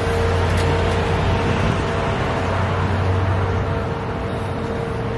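Steady mechanical hum with a strong low drone and a fainter steady higher tone, unchanging throughout.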